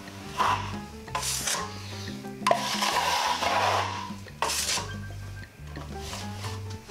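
Wide steel drywall knife scraping joint compound over a plaster wall and across the edge of a plastic mud hawk during a skim coat, in several short strokes and one longer scrape about two and a half seconds in.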